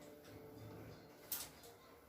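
Quiet room with a single sharp click about halfway through.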